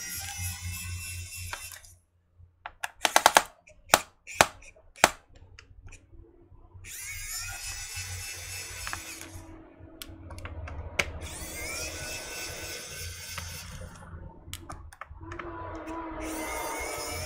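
Electric precision screwdriver whirring in several runs of a few seconds each as it backs out a laptop's bottom-cover screws, with a cluster of sharp clicks between runs about three to five seconds in.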